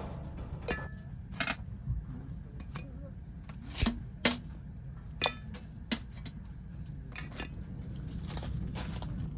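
Scattered clinks and knocks of cookware and dishes being handled, about half a dozen sharp strikes with the strongest pair around four seconds in, over a low steady hum.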